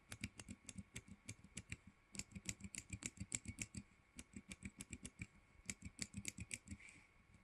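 Bare Cherry MX clicky key switches (blue, green and white), without keycaps, pressed repeatedly on a switch tester: faint, sharp clicks, several a second, in short runs with brief pauses.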